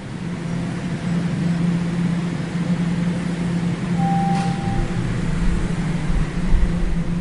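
Subway train interior ambience: the steady low hum and rumble of a running train car, with a short beep about four seconds in and the low rumble growing heavier near the end.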